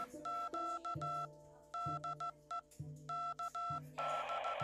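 Electronic background music made of beeping tones, over a low note that changes about once a second. About four seconds in a hiss comes in under short, evenly spaced beeps.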